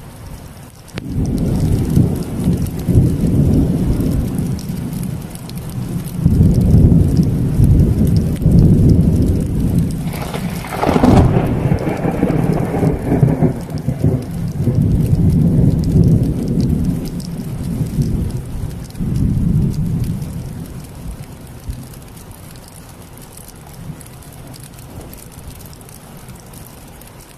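Thunderstorm: thunder rumbling in waves over steady rain, with a sharp crack about ten seconds in. The rumble dies away after about twenty seconds, leaving the rain.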